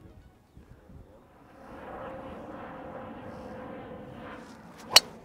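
A driver's clubface striking a teed-up golf ball: one sharp crack near the end, over a steady background drone.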